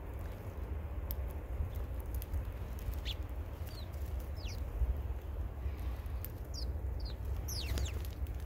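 Birds giving short, high, falling chirps, scattered at first and bunched near the end, over a steady low rumble.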